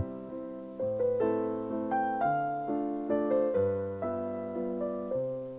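Soft background piano music: single notes struck about every half second, each ringing and fading.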